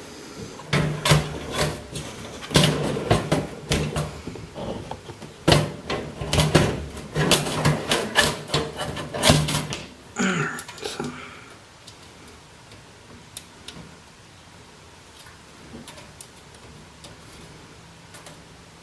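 Knocks and clatter of a computer power supply being handled and set into a metal computer case, a busy run of hits for about ten seconds. A short scraping slide follows, then only a few faint ticks.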